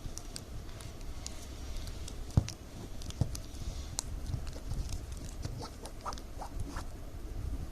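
Light crinkling and clicking of plastic strips cut from milk-powder bags being folded and woven by hand, with one sharper knock about two and a half seconds in, over a low steady hum.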